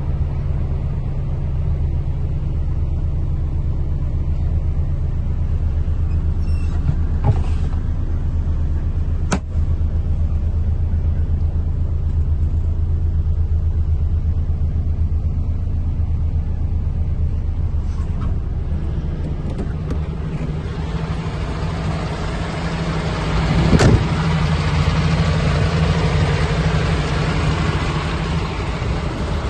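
MAN TGA 26.350 tipper truck's six-cylinder diesel engine idling steadily in neutral. A sharp click comes about nine seconds in and a short knock around twenty-four seconds in. In the last few seconds the engine sounds brighter and hissier, heard from beside the chassis rather than inside the cab.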